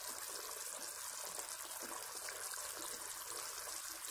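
Thick egg curry gravy simmering in a pan, a faint steady bubbling and hiss.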